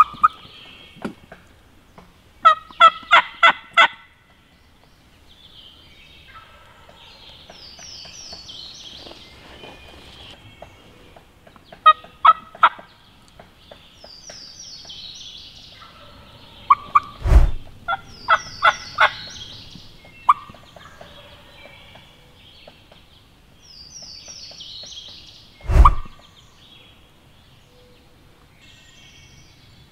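Wild turkey calling: three runs of rapid yelping notes, and short, loud gobbles about two-thirds of the way through and again near the end. Songbirds sing high and repeatedly in between.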